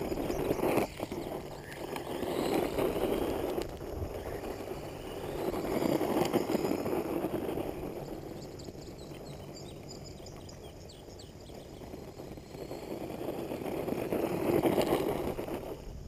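Rushing noise, likely wind buffeting the microphone, that swells and fades about four times, with faint high chirps behind it.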